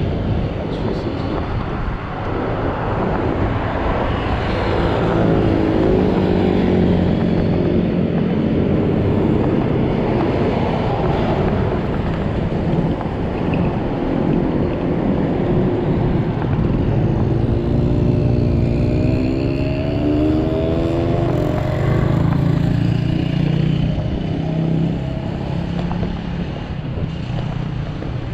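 Wind rushing over the microphone of a chest-mounted action camera on an electric scooter moving through city traffic. The engines of passing cars and motorcycles rise and fall in pitch about five seconds in and again around eighteen to twenty-two seconds in.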